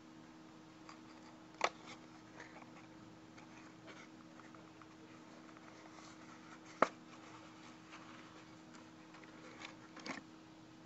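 A small toy car being handled in the fingers: a few sharp clicks and taps, the loudest about a second and a half in and near seven seconds, with a little cluster near the end, over a steady faint hum.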